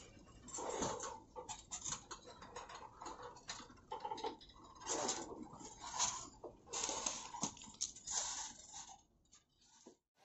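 Irregular clicking, tapping and scraping, uneven in rhythm and loudness, dropping away near the end.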